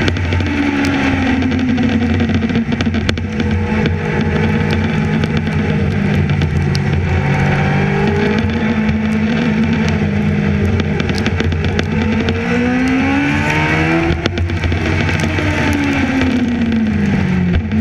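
Racing sidecar engine at high revs, heard from a camera mounted on the outfit: the revs drop at the start, hold through a run of gear changes, climb to a peak about fourteen seconds in, then fall away again.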